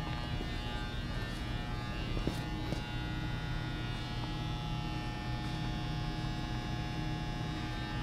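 Steady electrical hum made of many overlapping tones, with a couple of faint clicks between two and three seconds in.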